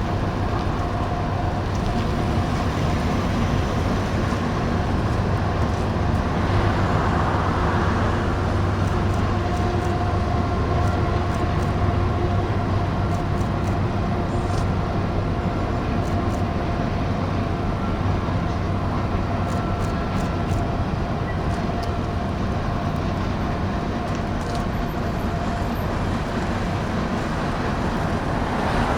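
Steady running noise of a moving road vehicle: a low rumble with a faint, even whine above it.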